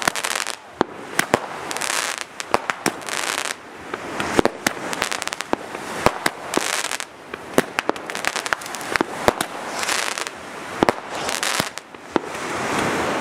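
Aerial fireworks going off: a string of sharp bangs and cracks, several a second at times, over a hissing rush that swells and fades between shots.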